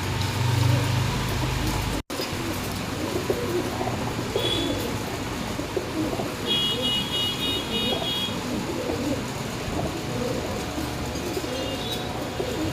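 Domestic pigeons cooing over a steady background hum, with a high pulsing chirp for a couple of seconds about halfway through.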